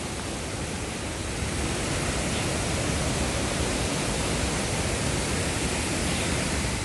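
Steady rushing of water from a waterfall heard up close, a constant even noise with no breaks.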